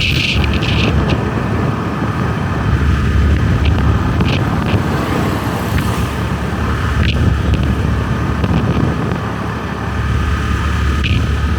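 Motorbike engine running at a steady pace while riding, with a continuous heavy low rumble.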